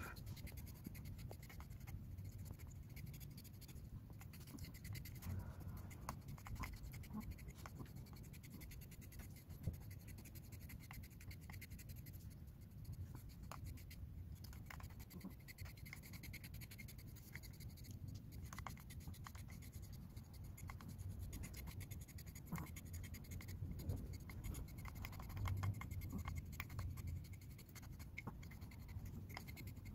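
Deshedding tool's metal comb blade scraping through a short-haired dog's coat in faint, repeated strokes, raking out shed undercoat.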